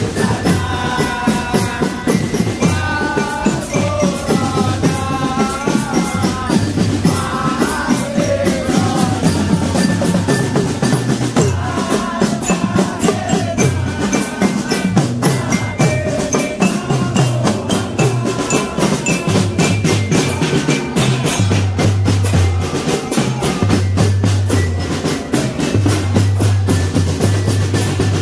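A marching drum band playing: a dense, steady pattern of snare and bass drum strokes. Over roughly the first half, a pitched melody is carried above the drums; after that the percussion and bass drum go on alone.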